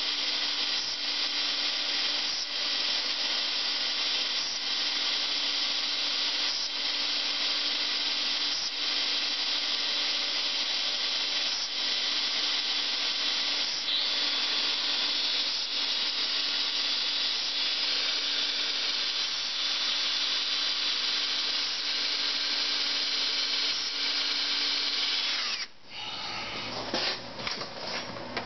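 Electric drill running steadily as it bores the head off a seized stainless fairing screw. The drill stops abruptly about 26 seconds in, followed by a few clicks and knocks.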